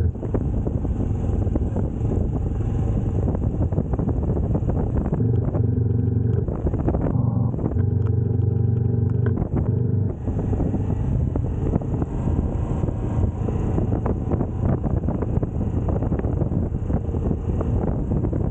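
Moto Guzzi V85TT's air-cooled transverse V-twin engine running as the bike is ridden over rough ground, with wind on the microphone and many small knocks. From about five to ten seconds in the wind hiss drops and the engine's low, steady note comes through more clearly.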